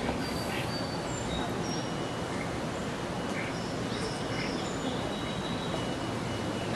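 Outdoor background noise, steady and even, with small birds chirping and whistling now and then and faint voices in the distance.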